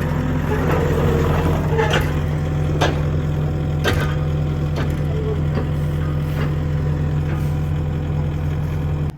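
Diesel engine of heavy digging equipment running steadily, with a few sharp knocks over it.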